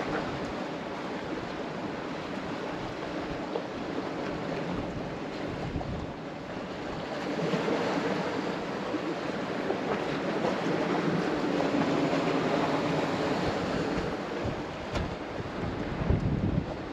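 Steady rush of sea surf and wind, with wind buffeting the microphone; the noise swells louder for several seconds in the middle.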